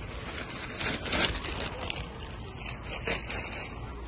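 Plastic carrier bag rustling and crinkling as it is lifted out of a wire shopping trolley, with several short scrapes and knocks.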